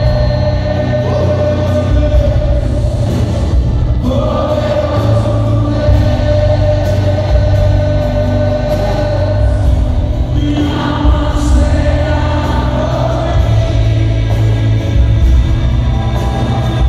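Live worship song over a PA: a singer with acoustic guitar and heavy bass, the congregation singing along in long held notes.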